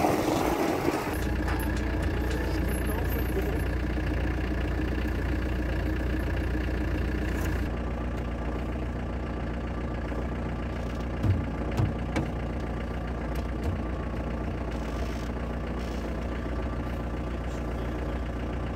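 Land Rover Defender's engine idling steadily, with a few light knocks near the middle.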